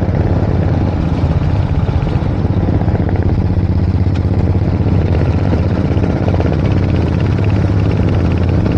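Motorcycle engine running steadily while riding, a deep, even drone that holds unchanged throughout.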